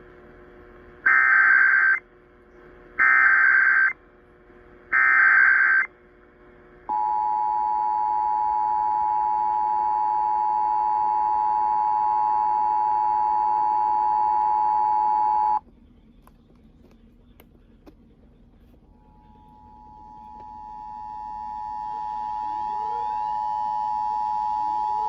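Emergency Alert System broadcast signal: three one-second bursts of SAME header data buzz, then the two-tone attention signal (853 and 960 Hz) held steady for about nine seconds before cutting off. Near the end, a second two-tone attention signal fades in gradually.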